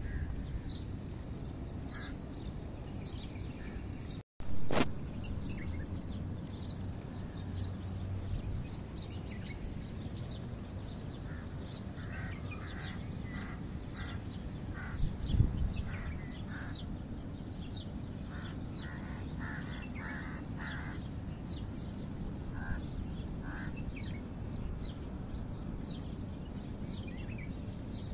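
Birds chirping and calling over a steady low background hum. About four seconds in, the sound drops out briefly and then a loud short burst follows; there is a low thump about halfway through.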